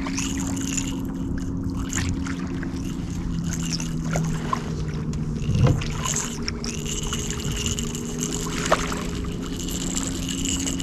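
A boat's motor humming steadily, with a faint high whine joining in the second half. A few sharp knocks sound over it, the loudest about halfway through.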